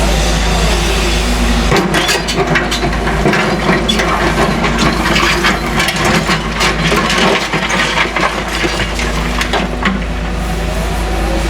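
A Caterpillar excavator's diesel engine running steadily under a dense string of clanks, knocks and cracks from about two seconds in to about ten seconds in, as it works demolition debris.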